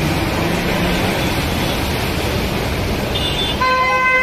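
Motor vehicles driving through a flooded street, tyres churning and splashing through the water. About three seconds in a short high horn beep sounds, then near the end a vehicle horn honks loudly for about a second.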